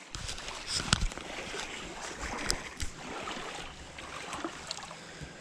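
Steady rush of river water with wind on the microphone, broken by scattered clicks and one sharp knock about a second in.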